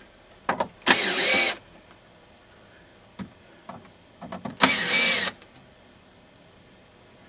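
Cordless screw gun whirring in two short bursts, about a second in and again near five seconds, backing screws out of a wooden frame. A few light clicks and knocks in between.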